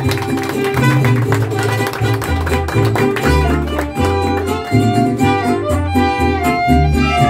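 Mariachi band playing an instrumental passage: guitars and vihuela strumming a steady rhythm over a guitarrón bass line, with a violin melody coming in around the middle.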